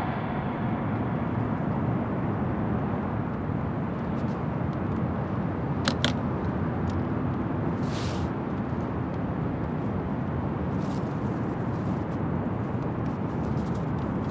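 Steady outdoor city ambience with a low rumble of distant traffic. A metal briefcase is handled and opened, giving a sharp double click about six seconds in and a short scrape about eight seconds in.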